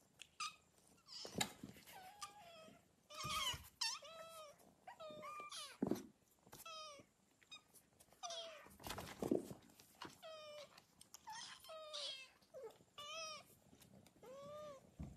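A litter of kittens meowing over and over, many short high cries overlapping one another.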